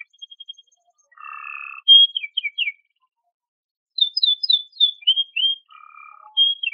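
Domestic canary singing: a short buzzy trill, then a run of quick downward-sweeping whistled notes; after a pause of about a second, more rapid sweeping notes, another low buzzy trill, and a final note.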